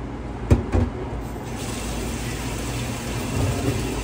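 Two knocks about half a second in, then a kitchen tap running steadily, filling the air fryer basket with warm soapy water in the sink.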